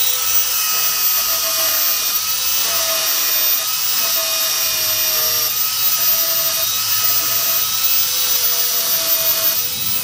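Narrow-belt power file (finger belt sander) grinding down a fresh weld on a steel floor pan: a steady high-pitched motor whine over a hissing grind.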